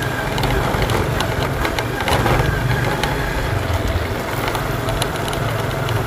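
Motorbike engine running steadily while riding, with a constant low rumble and road noise.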